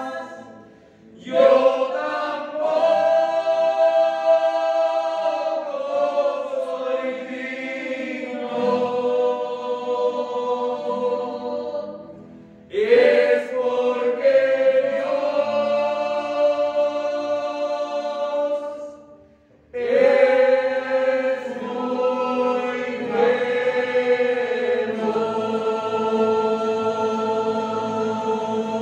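Mixed choir of men's and women's voices singing a slow hymn in three long, held phrases, each broken off by a brief pause: about a second in, near the middle, and about two-thirds of the way through.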